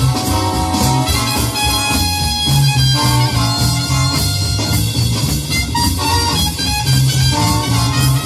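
Music with a steady beat: a band track with a walking bass line and guitar, with drums played along on an electronic drum kit.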